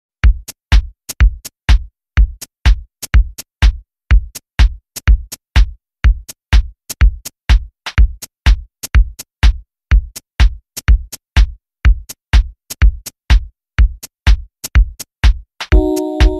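Background music: a steady, fast drum beat, with held chords coming in near the end.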